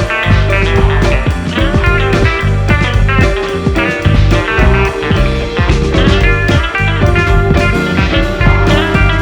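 Background music: a rock tune led by electric guitar over bass and drums with a steady beat.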